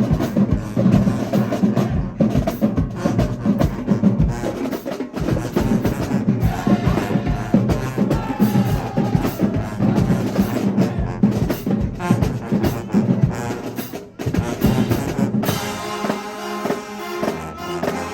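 Marching band playing, brass over a driving drumline. About fifteen seconds in the drums stop and the band holds a sustained chord.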